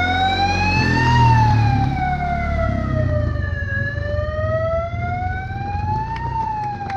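Emergency vehicle siren in a slow wail, its pitch rising and falling on a cycle of about five seconds, with a low rumble beneath it.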